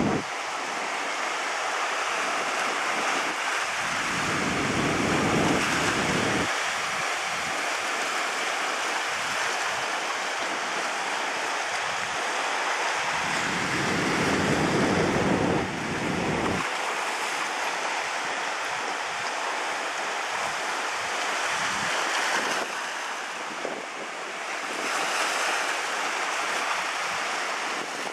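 Ocean surf breaking and washing over a rocky lava shoreline, a steady hiss of waves. Wind buffets the microphone in two gusts, a few seconds in and again about halfway through.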